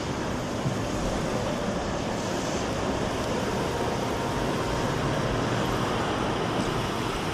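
Tatra T3 tram running past close by, a steady rumble of its wheels on the rails and its motors.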